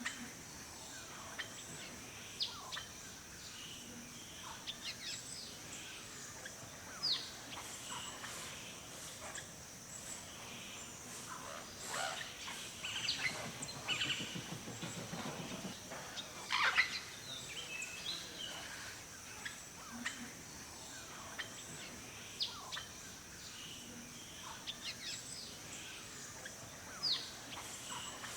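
Forest birds calling: many short, quick downward-sweeping chirps and tweets, scattered irregularly, over a steady high hiss. A low, rapid rattling sound comes in briefly around the middle.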